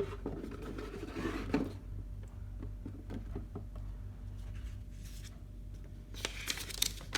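Packaging and a cloth bag being handled: rustling and rubbing, strongest in the first second and a half and again near the end, with a few light taps, over a steady low hum.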